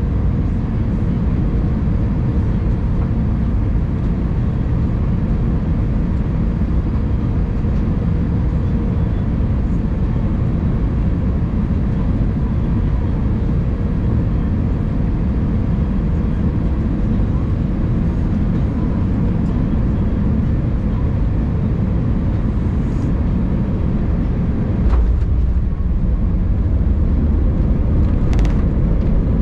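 Airbus A319 cabin noise on final approach: a steady rumble of engines and airflow. Near the end the wheels touch down with a sudden thump, and a heavier, louder rumble of the wheels rolling on the runway follows.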